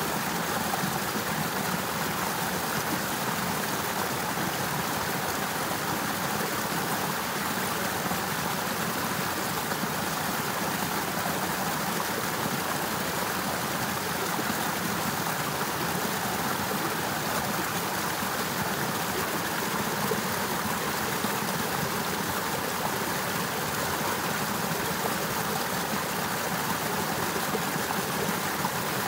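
Water of an icy, partly frozen river running steadily: a constant, even rush with no breaks or changes.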